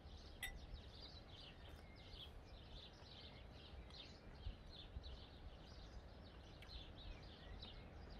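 Faint outdoor ambience in the bush: small birds chirping over and over, with a faint low background rumble. One light click about half a second in.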